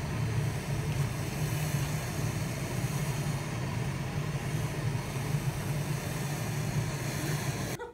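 Steady roar of gas burners in a glassblowing hot shop, such as the hand torch played on glowing glass on a blowpipe, with a strong low rumble under a hissing noise. It cuts off suddenly just before the end.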